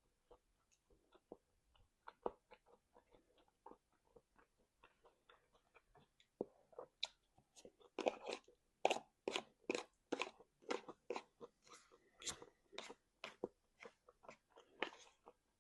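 A person chewing and crunching food in the mouth: soft mouth clicks at first, then louder, crunchy chewing at about three bites a second from about seven seconds in.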